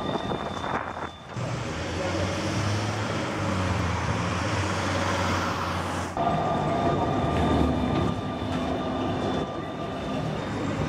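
Bombardier CR4000 electric tram running along street track, a steady low hum with a few held tones over the street's background noise. The sound changes abruptly about a second in and again about six seconds in.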